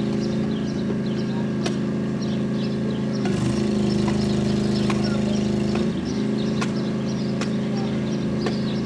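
An engine idling steadily, wavering briefly in pitch about three and six seconds in, with a few faint clicks.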